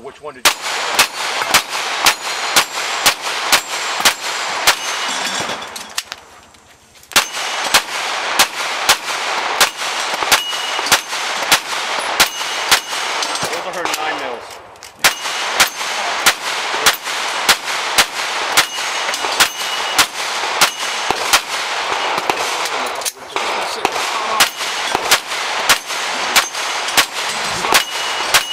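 A string of 9mm pistol shots from an SJC Glock 17 open-division race gun, fired at about two a second, with steel plate targets ringing as they are hit. The shooting breaks off twice for about a second, near a quarter of the way in and again near the middle, typical of magazine changes.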